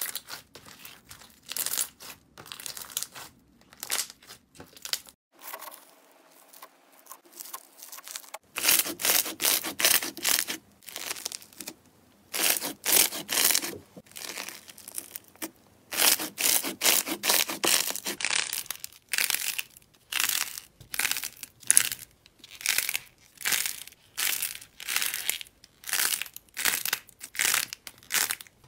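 Hands squeezing, pulling and pressing slime: repeated wet squishes and crackles, one or two a second, with a quieter stretch a few seconds in.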